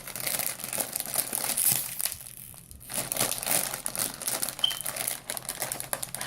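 A snack bag of chili-flavoured potato snacks crinkling as it is handled and opened, with a short pause a little over two seconds in.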